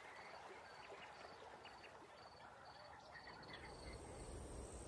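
Faint wildlife ambience: a small creature's short, high-pitched call repeats about twice a second, and a steady high whine comes in about three and a half seconds in.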